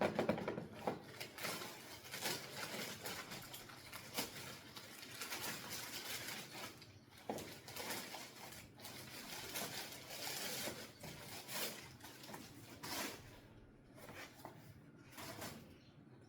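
Rustling and scattered light knocks from handling clothes and footwear, uneven and thinning out toward the end.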